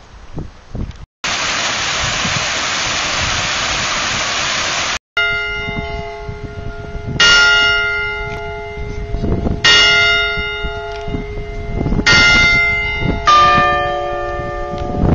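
Tower bells ringing, with loud strokes about every two and a half seconds and long ringing decays. A second bell of a different pitch sounds near the end. Before the bells there are a few seconds of a loud, steady rushing noise.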